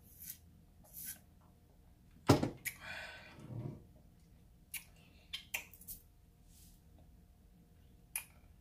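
Close-miked eating sounds of a person eating seafood: scattered wet clicks and smacks, with one sharp knock about two seconds in followed by a noisy sound of about a second and a half, then a few more clicks.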